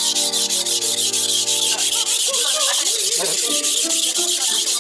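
Steel knife blade rubbed back and forth across a whetstone in rapid, even strokes, several a second, a steady gritty scraping. Music with a wavering melody plays faintly underneath.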